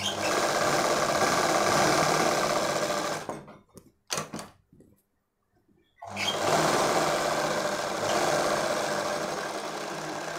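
Sewing machine stitching in two runs, one of about three and a half seconds and one of about four seconds, with a pause of about two seconds between them that holds a few short clicks. The second run fades gradually toward the end.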